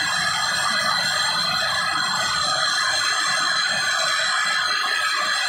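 Handheld gas brazing torch burning with a steady hiss and several steady high tones over it, while lines are brazed on a replacement refrigeration compressor.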